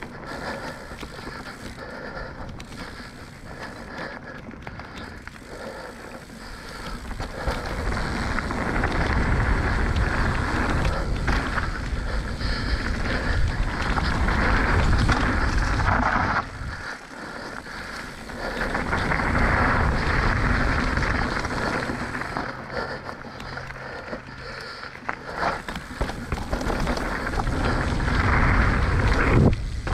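Mountain bike riding fast down a dirt singletrack: a continuous rush of knobby tyres on dirt and air moving past, swelling and fading with speed, with brief knocks and rattles from bumps, more of them near the end.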